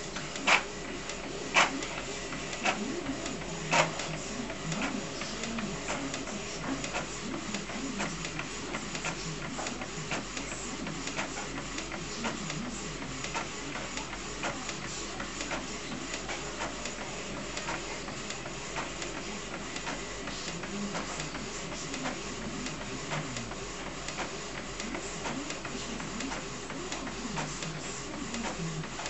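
Epson Stylus Office BX300F inkjet printer printing a page: a few sharp clicks in the first four seconds, then the steady running of the print head carriage shuttling back and forth and the paper feeding, with fine rapid ticking throughout.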